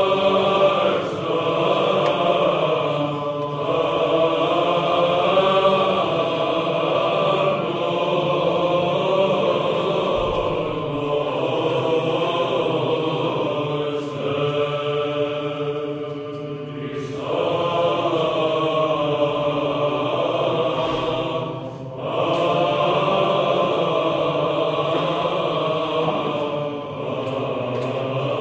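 Choral chant: voices hold a steady low drone beneath a slowly moving melody, sung in long phrases with short breaks between them.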